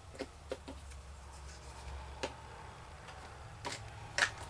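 Light plastic clicks and taps as snap-together toy race track pieces are handled and fitted, a handful of scattered clicks over a faint low hum.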